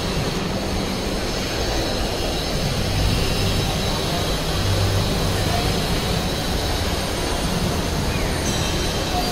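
Steady background din of a busy shopping-mall atrium: crowd hubbub and a low mechanical rumble, with no distinct events.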